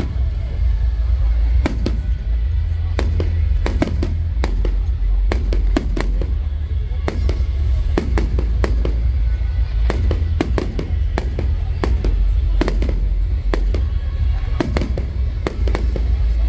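Fireworks display: aerial fireworks banging and crackling in quick, irregular succession, dozens of sharp reports over a steady low rumble.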